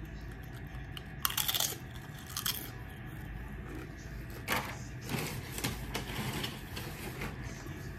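Thin, crispy tortilla chips crunching as they are bitten and chewed: a few separate sharp crunches, then a run of smaller crackles in the second half.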